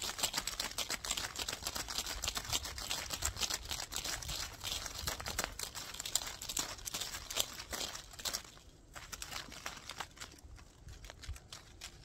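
Leaves and brush rustling and crackling close against the phone's microphone: dense, quick crackles that thin out and grow quieter about eight seconds in.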